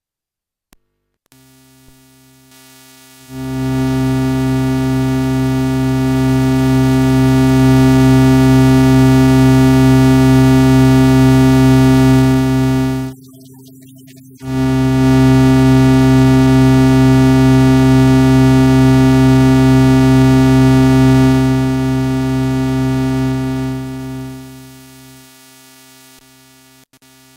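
A steady, low synthesizer note with many overtones: a Eurorack oscillator's audio signal passed through a function-generator input (Make Noise Maths / Behringer Abacus) for an audio-quality check. It starts about three seconds in, cuts out for about a second and a half midway while the patch is changed, then returns and fades out near the end.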